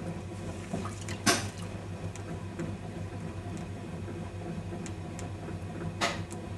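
Electric potter's wheel running with a steady low hum while wet hands work the clay on it. Two sudden sharp sounds stand out, the louder about a second in and the other near the end.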